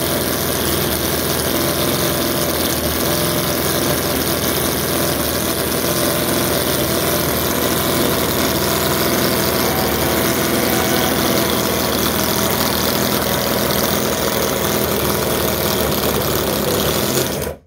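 Miniature water-cooled PeeWee V4 spark-ignition model engine running steadily on test after a water leak into its crankcase was repaired. It cuts off suddenly near the end.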